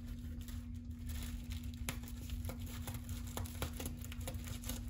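Faint, scattered clicks and crinkles of a plastic oven bag being handled while steam slits are cut in it, over a steady low hum.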